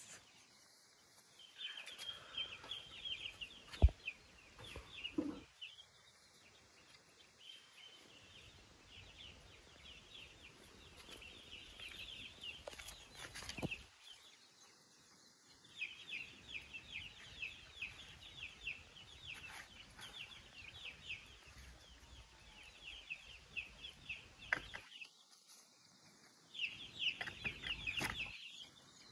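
A young chick peeping over and over in quick high cheeps, pausing a few times. A single sharp knock comes about four seconds in.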